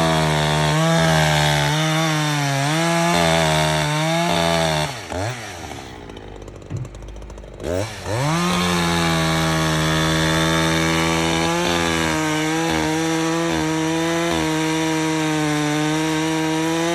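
Two-stroke chainsaw running at full throttle, its pitch wavering as it cuts. About five seconds in it drops to a low idle for a couple of seconds, then revs back up and runs at full speed again.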